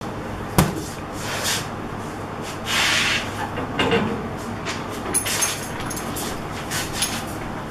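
Handling noises from items on a bed and desk. A sharp knock comes about half a second in, then rustling swishes as a cloth item is picked up and shaken, with a few light clicks near the end.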